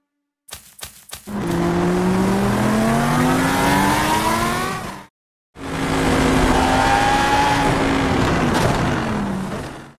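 Dubbed-in racing car sound effect: an engine revving up with steadily rising pitch for about four seconds and cutting off. A second engine run follows, holding its pitch and then falling away near the end.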